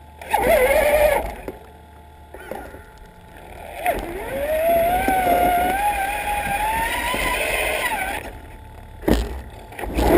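Traxxas Summit RC truck's electric motor and geared drivetrain whining as it pushes snow: a short burst near the start, then from about four seconds in a long whine that climbs steadily in pitch as the truck speeds up and falls away near eight seconds. A brief knock about nine seconds in.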